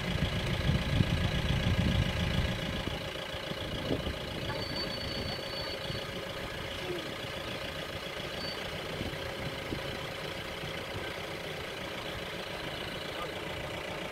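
Vehicle engine idling steadily, with a heavier low rumble for the first two or three seconds.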